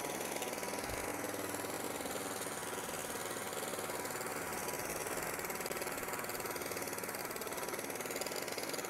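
Walk-behind gas lawn mower running steadily while it cuts grass.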